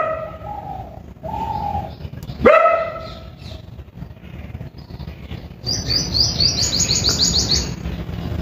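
A dog barks twice, about two and a half seconds apart. Later a bird gives a quick run of high chirps, about eight a second, for roughly two seconds.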